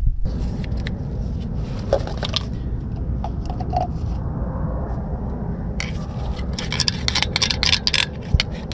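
A metal screwdriver scraping and clicking against metal parts and the grease jar, in a quick run of scrapes near the end, over a steady low rumble.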